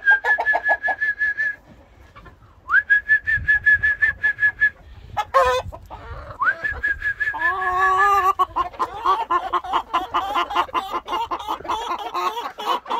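A person whistles three long notes, each sliding up and then held steady, calling chickens, with clucking under them. From about seven seconds in, a flock of chickens clucks and squawks excitedly and continuously as they feed.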